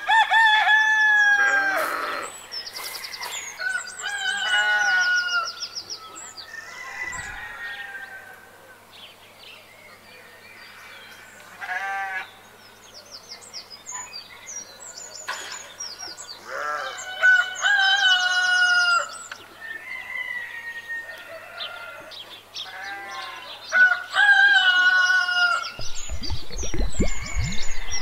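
Roosters crowing several times with hens clucking between the crows, a farmyard of poultry.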